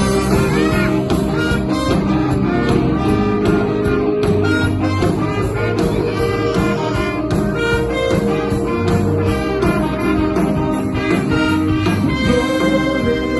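Worship band playing live: drums keeping a steady beat under a bass line and a lead melody.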